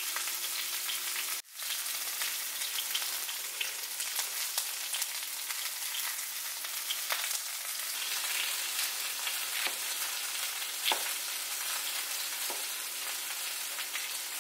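A chef's knife slicing through okra pods and tapping a plastic cutting board, a few scattered knife strikes over a steady hiss.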